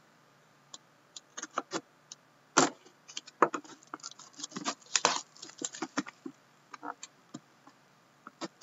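Plastic shrink wrap crinkling as a sealed trading-card box is handled and opened: an irregular run of sharp crackles and clicks starting about a second in, busiest through the middle.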